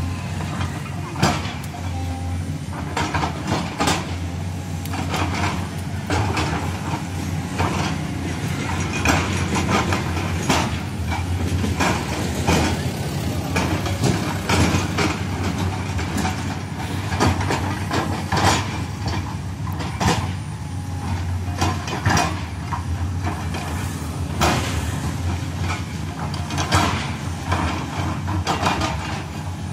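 JCB tracked excavator's diesel engine running steadily as it digs, with frequent short knocks and clatters over the engine hum.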